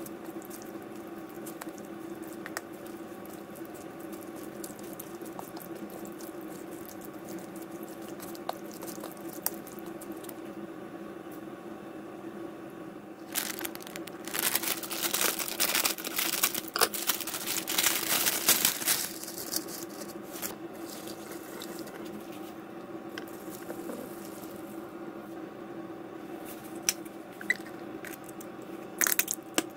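Hot water running into a bowl of rice noodles for about five seconds, starting about halfway through, over a steady low hum and a few small clicks.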